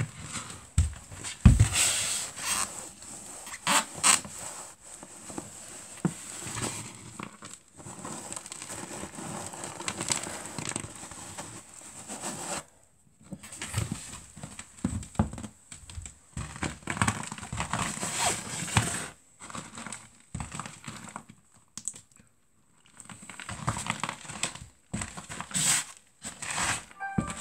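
Sneaker soles crushing and grinding crumbly food into crumbs on a wooden floor: irregular crunching and crackling, with a few sharp stomps on the boards and two short pauses.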